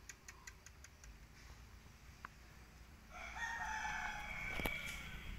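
A rooster crowing once, a single held crow starting about three seconds in and lasting about two seconds, with a sharp click near its end.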